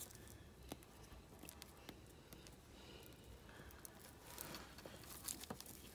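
Faint handling sounds, with a few small ticks and a soft rustle, as fingers peel white adhesive tape off the end of a three-strand rope; otherwise near silence.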